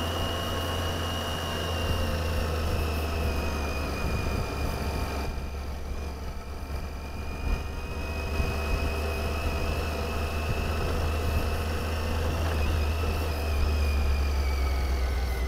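Motorcycle engine running steadily at low speed, a low drone heard from the camera's own bike, with a thin high whine above it.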